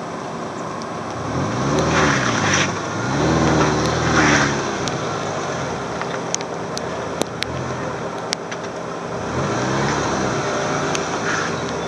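First-generation Subaru Forester's flat-four engine revving up and dropping back twice while climbing a rock section, over a steady engine hum, with scattered sharp clicks and knocks.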